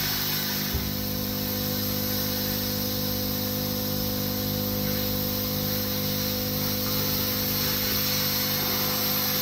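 Plasma cutter cutting car sheet metal: a steady hiss of the arc and air jet over the even hum of its built-in air compressor.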